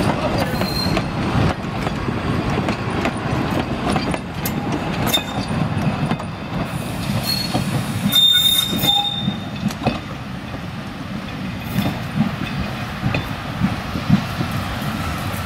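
Narrow-gauge railway coaches and a goods van rolling past and away over jointed track: wheels rumbling with repeated clacks at the rail joints and a short high wheel squeal about eight seconds in, growing fainter as the train recedes.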